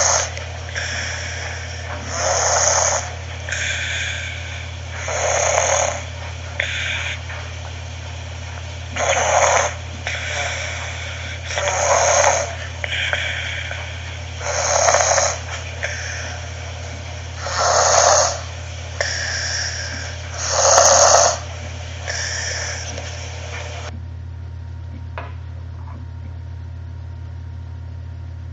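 A sleeping person snoring, a loud snore about every three seconds with softer snoring sounds between. The snoring stops about 24 seconds in, leaving only a steady low hum.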